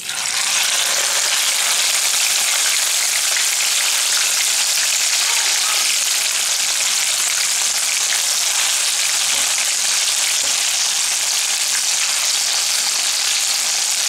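Marinated chicken pieces deep-frying in hot oil: a loud, steady sizzle that starts suddenly as the pieces go into the oil.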